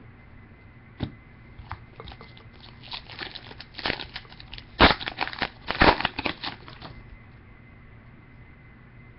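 Crinkling and rustling of a trading card pack's foil wrapper and cards being handled, with a few clicks early on and then a dense run of crackling that peaks about five and six seconds in before it stops.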